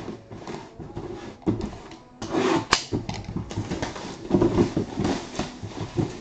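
Plastic shrink wrap crinkling and tearing as it is stripped off a cardboard box, with handling knocks against the box and a sharp click about two and a half seconds in.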